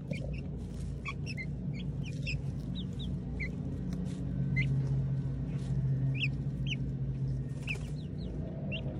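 Young chickens peeping and cheeping as they forage, many short high chirps scattered through the whole stretch, over a steady low hum.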